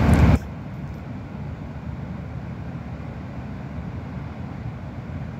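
Wind buffeting the microphone: a loud rush of noise that cuts off abruptly about half a second in, then a steady low rumble.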